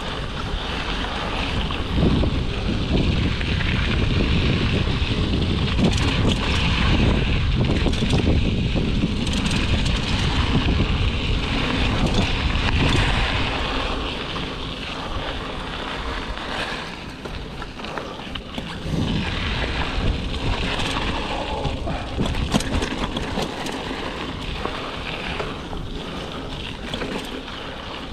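Wind buffeting a GoPro's microphone as a Giant Talon mountain bike rolls along dry dirt singletrack, with tyre noise and scattered sharp knocks and rattles from the bike over bumps. The wind rumble is heaviest through the first half and eases after about fourteen seconds.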